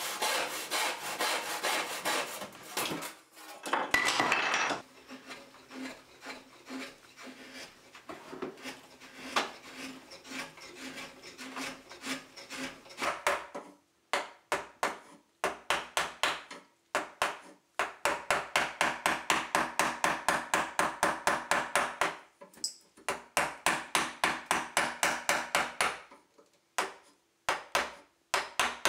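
A handsaw cutting wood in quick strokes, then, about halfway in, a chisel pushed by hand into the rim of a red oak flywheel in rapid short scraping strokes, several a second, in bursts with brief pauses.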